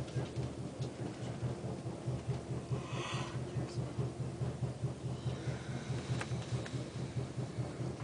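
Amtrak Cascades passenger car running along the track, heard from inside the coach: a steady low rumble that pulses evenly about three times a second. A brief hiss comes about three seconds in.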